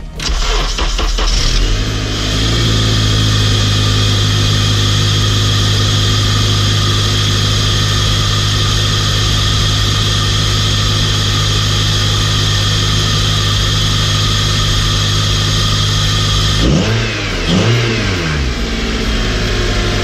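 2004 Honda Accord's 2.4-litre DOHC four-cylinder, fitted with a short ram cone-filter intake, starting and settling into a steady idle. About three-quarters of the way through it is revved briefly twice, then drops back to idle.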